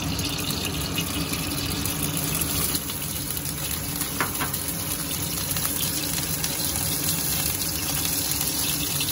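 Steady rushing kitchen background noise with a low hum underneath, and a faint tick about four seconds in.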